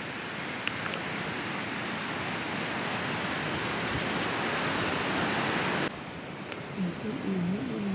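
Ocean surf washing on the beach as a steady rush, cut off abruptly about six seconds in. Near the end comes a short, wavering pitched call.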